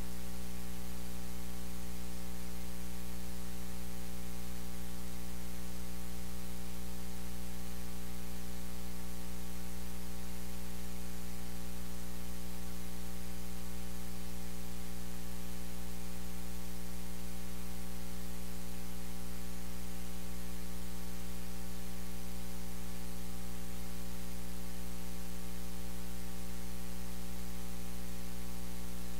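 Steady electrical mains hum with buzzing overtones over a constant hiss, unchanging throughout and with no other sound over it.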